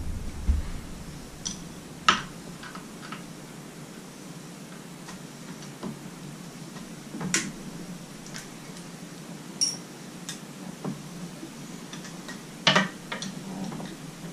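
Scattered sharp metallic clicks and clinks of a wrench on the carburetor mounting nuts of an outboard powerhead, a few seconds apart, with a quick cluster near the end.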